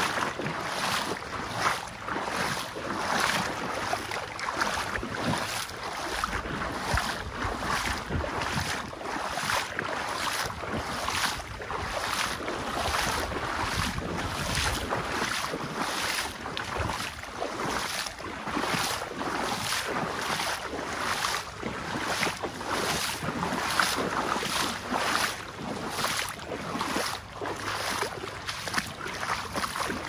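A river's water rushing steadily, with regular footsteps about once a second and wind gusting on the microphone.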